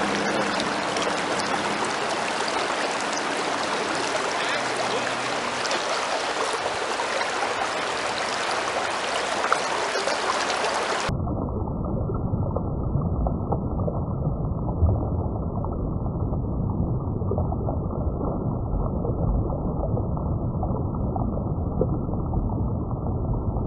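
Steady rush of the fast-flowing Kenai River. About eleven seconds in, the sound suddenly turns muffled and deeper, its high end cut away.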